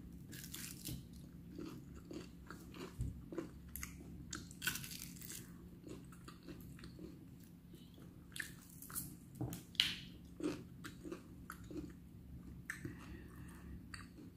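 Someone chewing and biting crispy fried chicken close to the microphone: irregular faint crunches and chewing, with the meat being pulled off the bone by hand.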